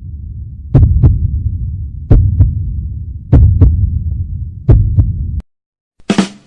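Heartbeat sound effect: four double thumps, lub-dub, about 1.3 seconds apart over a low throbbing drone, which cuts off suddenly; near the end a short, bright burst of noise begins the next effect.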